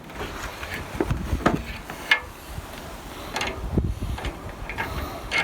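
Irregular metallic clicks and knocks of a 13 mm spanner or socket being handled and fitted onto the bolts of a roof-rack light-bar mount, just before the bolts are tightened.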